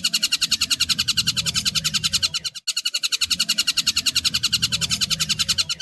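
Tengkek buto kingfisher calling in a fast, chattering trill of sharp repeated notes, about a dozen a second, with one short break about two and a half seconds in.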